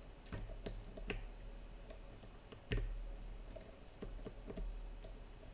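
Small irregular metallic clicks as a thin probe pushes the pins of a 7-pin tubular lock held under light tension, a dozen or so in uneven succession, the loudest about two and a half seconds in.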